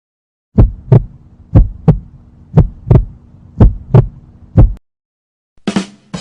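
Heartbeat sound effect: four double 'lub-dub' thumps about once a second, then a single thump, over a low steady hum. It cuts off suddenly, and a brief different sound follows near the end.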